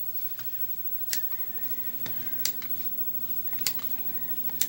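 Sharp metallic clicks, four loud ones spaced about a second apart, as pliers grip and work parts at the front of an Asahi electric fan's motor housing. A low steady hum comes in about one and a half seconds in.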